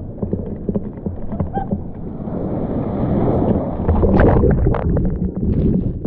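Breaking surf churning and splashing over a GoPro Hero 7 held at water level. The sound is dull and muffled, full of small knocks and splashes against the camera, and grows louder about four seconds in as the wave washes over it.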